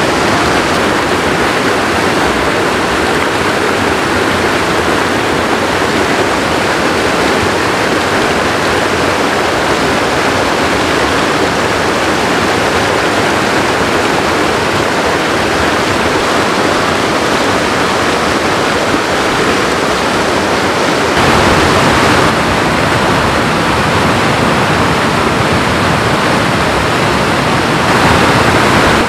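Rushing water of a rocky creek tumbling over boulders and small cascades: a loud, steady rush that swells briefly twice, once about two-thirds of the way in and again near the end.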